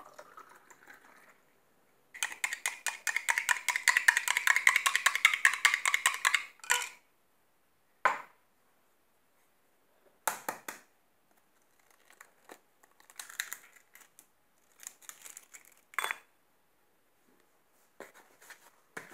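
A spoon stirring yeast into warm milk in a drinking glass, rapid clinking against the glass for about four seconds. After it come a few separate knocks and taps as an egg is cracked into a small ceramic bowl, with faint handling sounds between them.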